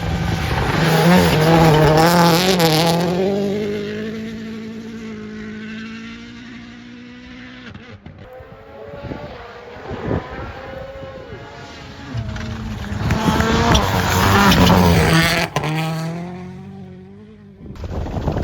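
A WRC rally car's 1.6-litre turbocharged four-cylinder engine at full stage pace, its note rising and falling through gear changes as it passes close by. It fades into the distance, then comes back loud again about twelve seconds in before dying away near the end.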